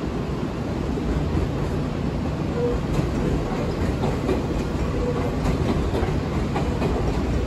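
Nankai electric commuter train rolling slowly into Namba station: a steady low rumble of wheels on rail, with light clicks as the wheels cross the rail joints and points.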